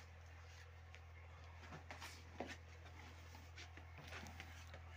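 Near silence: a steady low hum with a few faint clicks and knocks.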